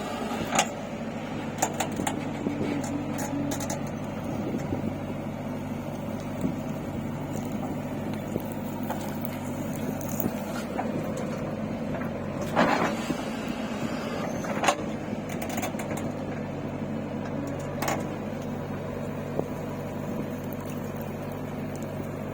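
Diesel engine of heavy machinery running steadily, with occasional sharp metallic knocks or clanks.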